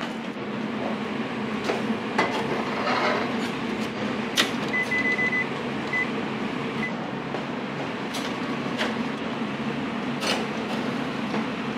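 Rinnai countertop convection oven being worked: its metal door and handles click and knock several times, and a run of short high electronic beeps from the control panel comes about five seconds in. A steady hum of running kitchen equipment lies under it all.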